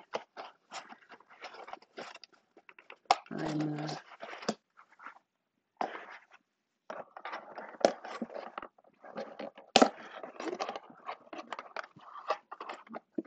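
Takeout food containers and packaging being opened and handled: crinkling and clicking of plastic and paper in irregular bursts, with a brief whine-like pitched sound about three seconds in.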